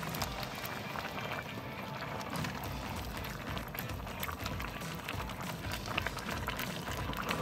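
Goulash with red wine simmering and bubbling in an enamelled pot while a wooden spatula stirs through it, giving scattered small scrapes and clicks against the pot.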